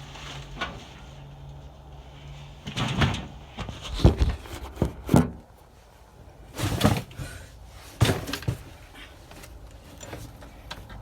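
Cardboard boxes being shoved aside and a door pushed open: a run of knocks, thumps and scrapes starting about three seconds in.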